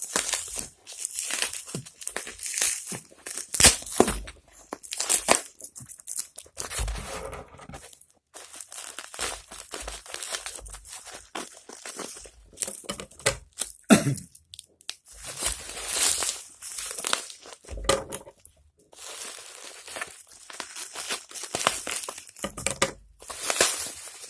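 Thick double layer of parcel wrapping being torn and crinkled open by hand, in irregular bursts of ripping and rustling.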